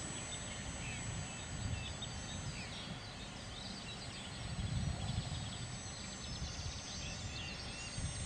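Strong gusty wind buffeting the microphone, a low rumble that swells and falls, with birds chirping in the background.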